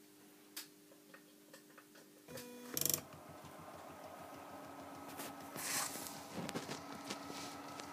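Homemade printer built from DVD-drive mechanisms, its stepper motors stepping the pen carriage with a fast mechanical ticking buzz over a steady hum. A faint hum and a few clicks come first; after about two seconds the mechanism starts with a loud rattle, with a louder scratchy stretch about six seconds in.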